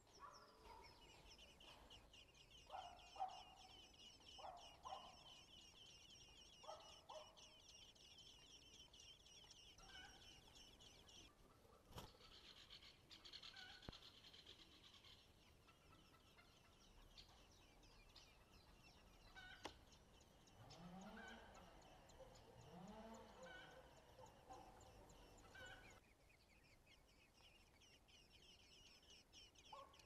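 Eurasian blackbird nestlings begging: a fast, high-pitched chatter that runs on with two brief breaks. Fainter, lower separate bird calls come now and then, a few in the first seconds and a pair about two-thirds of the way in.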